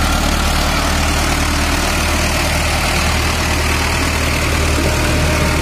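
Diesel tractor engine running steadily at low speed, an even low drone with no change in pitch.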